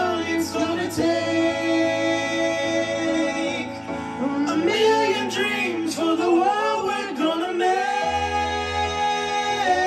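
A man singing over a backing track of music, holding long notes near the start and end with a moving phrase in between.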